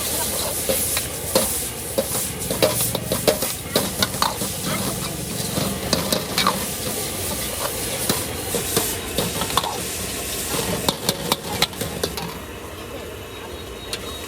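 Food sizzling in a hot wok while a metal ladle stirs and scrapes it, with many sharp clanks of metal on metal; the sizzle dies down near the end.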